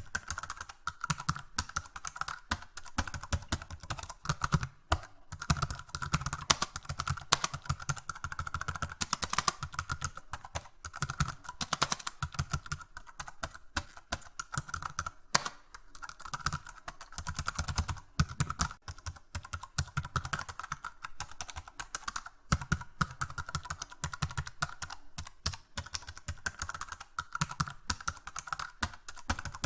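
Computer keyboard being typed on continuously, keys clicking in quick, irregular runs with brief pauses.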